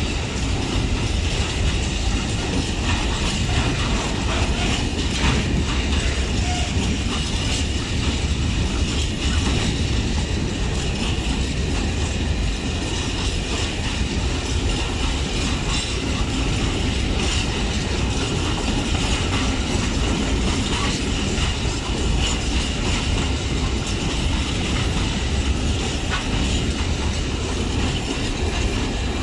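Open-top freight wagons of a long freight train rolling past at a steady pace, their wheels rumbling and clacking on the rails without a break.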